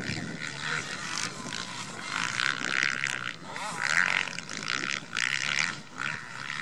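Motocross bike engines revving hard in repeated surges, the pitch rising and falling as the throttle opens and closes.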